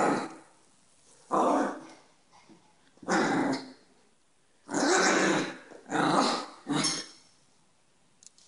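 Chihuahua growling through a toy held in its mouth in about six short growls, each under a second, with pauses between: playful growling during a game.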